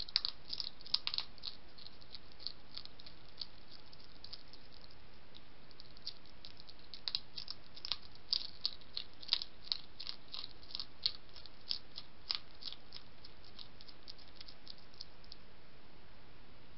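European hedgehog crunching dry kitten biscuits: irregular crisp clicks, bunched near the start and again through the middle, over a steady hiss.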